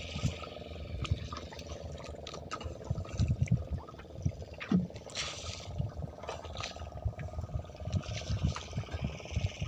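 Uneven low rumbling of wind buffeting the microphone on an open boat, with water lapping at the hull, a faint steady hum and a few small clicks.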